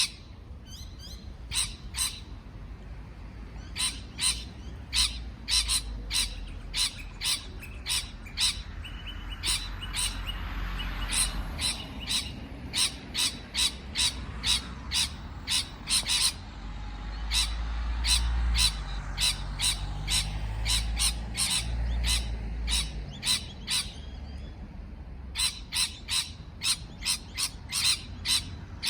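A parrot calling in long runs of short, sharp, repeated chirps, about two or three a second, with brief pauses between runs, over a low background rumble.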